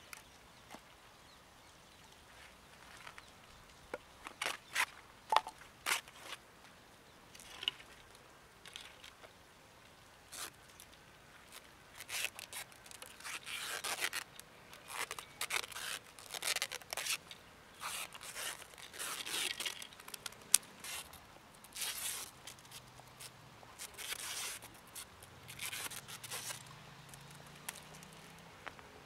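Wooden slats and paper being handled by hand: a few sharp knocks and clicks of wood, then a long run of short tearing, crinkling and scraping sounds.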